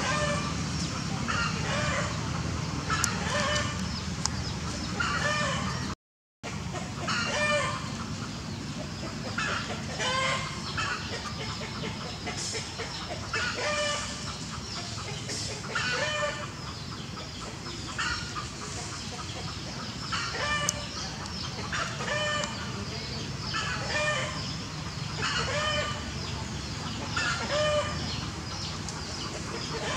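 Short animal calls repeated about every one and a half to two seconds, over a steady background hum. The sound cuts out completely for a moment about six seconds in.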